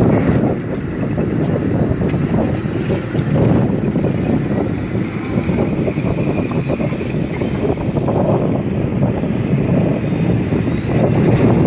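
Heavy diesel machinery running steadily, its level swelling and easing slightly.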